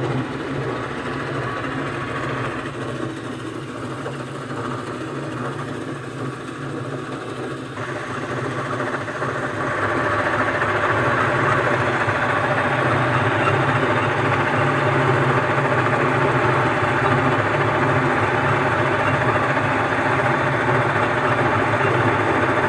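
Heavy engine lathe running steadily with a low hum while turning a steel gland packing bushing for a pump. About eight seconds in the sound grows louder and brighter, and it stays that way.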